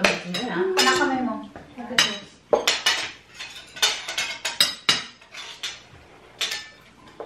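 Cutlery and chopsticks clinking and clicking against plates and bowls at a meal, many short irregular knocks.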